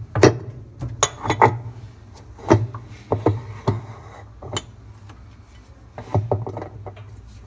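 Irregular metal clicks and knocks with some scraping as a wrench tightens the reverse-threaded nut that holds the washing machine's tub onto the transmission shaft, over a steady low hum.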